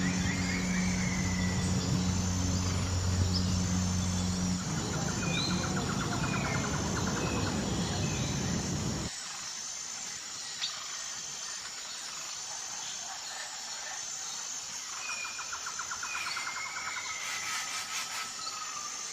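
Outdoor ambience of birds chirping and a steady high insect trill. Under it for the first nine seconds runs a low steady hum, like a motor, which cuts off abruptly.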